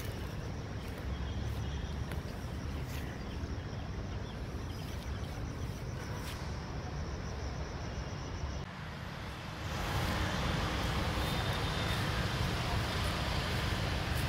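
Steady outdoor background noise with a low rumble, becoming louder and fuller about ten seconds in.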